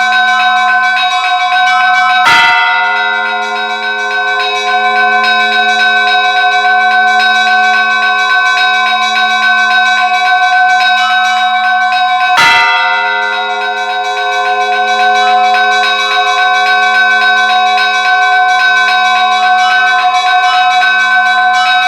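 Russian church bells pealing: smaller bells chime in a fast, continuous pattern, broken by a heavy, louder stroke about two seconds in and another about ten seconds later.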